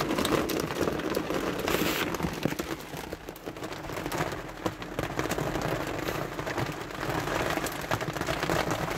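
Hailstorm: hail falling hard and hitting surfaces as a dense, steady patter of many small sharp impacts.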